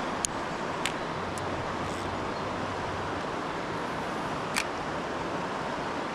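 Steady rush of flowing river water, with a few short sharp clicks near the start and one about four and a half seconds in.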